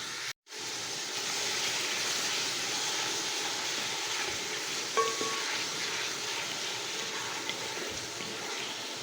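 Pumpkin and tomato frying in oil in a cooking pot: a steady sizzling hiss. A metal utensil clinks against the pot once about five seconds in.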